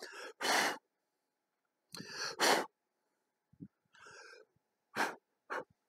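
A man's short, breathy exhalations and sniffs close to the microphone, several separate puffs with silences between them.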